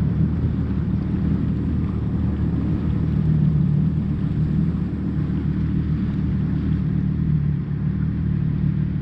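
Jet ski engine running at a steady speed, a low, even drone that holds its pitch throughout.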